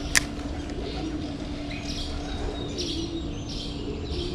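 A bird calling over and over, short high calls at about two a second, over a steady low hum, with a single sharp click just after the start.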